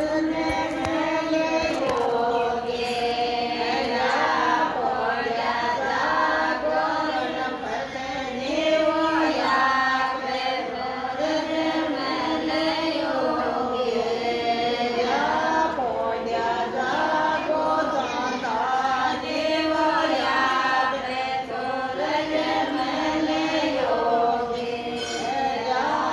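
A group of women singing together in unison, a chant-like song whose melodic phrase repeats every couple of seconds.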